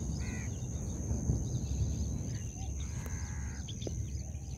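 Outdoor beach ambience: a steady low rumble of background noise with a few short bird chirps, one clear chirp just after the start, and a faint steady high-pitched tone.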